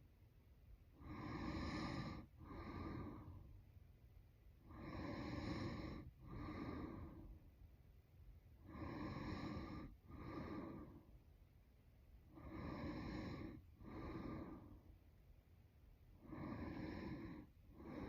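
A woman snoring in her sleep in a slow, even rhythm: about every four seconds a longer snore on the breath in, followed by a shorter one on the breath out.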